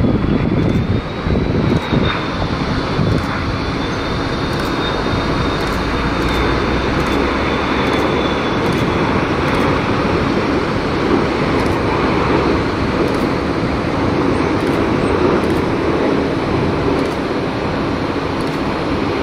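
Jet airliner's engines on a landing pass: a steady, loud rushing noise with a thin high engine whine that drifts slightly and fades out about halfway through, while the low noise carries on.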